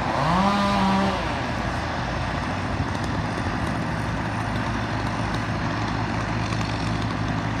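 An engine running steadily with an even drone. In the first second a short pitched sound rises and holds for well under a second.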